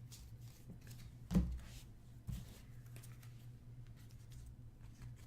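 Panini Excalibur basketball trading cards being handled and slid against one another as they are flipped through, with a soft knock about a second and a half in.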